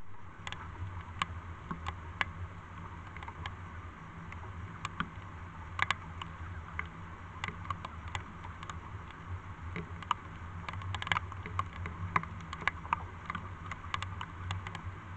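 Steady running water with many irregular sharp ticks and small splashes, typical of a full mountain stream.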